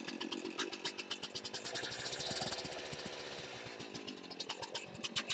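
Two-stroke chainsaw engine idling off the throttle, with a fast, even pulsing beat.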